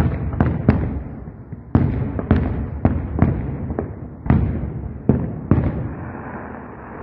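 Aerial fireworks display: a rapid, irregular series of about a dozen shell bursts going off, each bang trailing off in a rumbling echo, with a short lull near the end.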